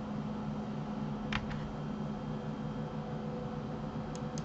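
Computer keyboard and mouse clicks over a steady low hum: a key click about a third of the way in, and two short, sharper mouse clicks near the end.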